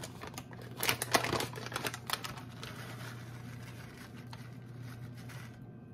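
Bacon bits being poured into a bowl of dip: a scatter of small taps and patters, thickest about one to two seconds in and then fading to a faint rustle, over a steady low hum.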